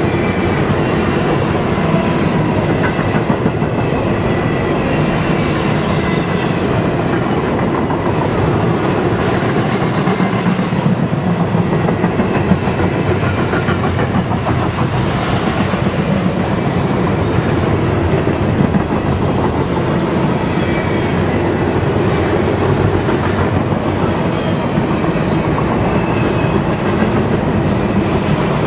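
Double-stack intermodal freight train rolling past at speed: a steady rumble and clatter of steel wheels on rail from the passing well cars.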